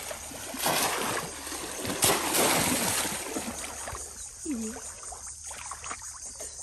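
Water splashing as bamboo polo fish traps are plunged down into shallow river water by people wading, with the loudest splashes about one second and two seconds in. From about four seconds in it settles to quieter sloshing as hands feel about inside the traps.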